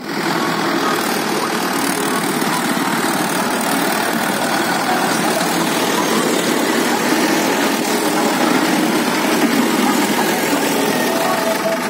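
Diesel tractor engines running steadily and loudly: a Mahindra 575 DI close by and a Mahindra Arjun Ultra 605 driving behind it.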